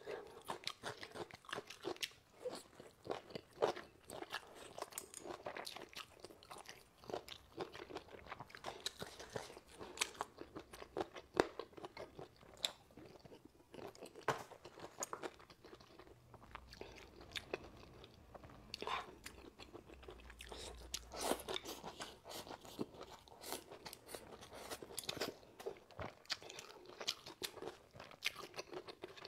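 A person biting and chewing braised meat close to a clip-on microphone: a continuous, fairly quiet run of short clicks and smacks of mouth and food.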